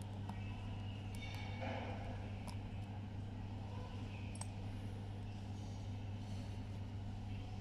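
A steady low hum, with a few faint light clicks from a precision screwdriver working on the watch's battery clamp screw, most of them in the first few seconds.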